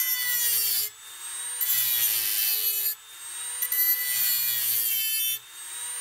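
Dremel rotary tool running at high speed with a steady whine, grinding a slot into the broken-off Torx bit stuck in a metal screw head. It bites into the metal three times, in harsh grinding passes of a second or two each, and the motor's pitch sags under the load. The whine carries on, lighter, in the short gaps between passes.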